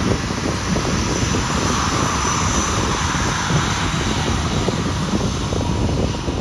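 Boeing 737-700's CFM56-7B turbofan engines running at taxi power as the jet taxis and turns onto the runway: a steady jet rush with a faint high whine, with wind rumbling on the microphone.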